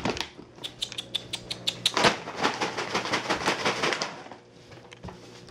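A run of light, irregular clicks and rustles that dies down about four seconds in, over a faint low hum.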